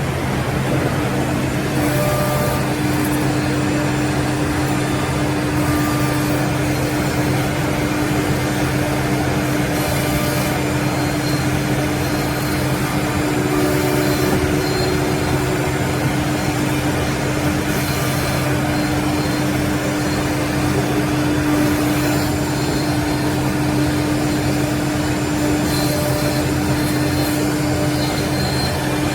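Three-head CNC mortising machine running: a steady motor drone and whine, with short hissing bursts every few seconds as the heads work.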